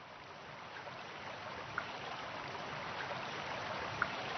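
Running water from a stream, a steady rushing that swells gradually, with a couple of faint clicks.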